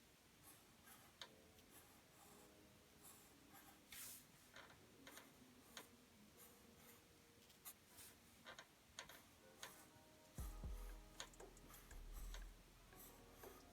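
Faint pencil on paper: scattered light ticks and scratches of short strokes. A low rumble comes in about ten seconds in.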